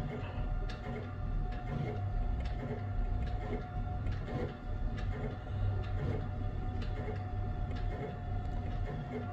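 Stratasys F370 3D printer running mid-print, its print head moving over the parts, with a steady low hum, a steady whine and faint irregular ticks. It is laying the last layer of lettering on PLA parts in the final minute of the print.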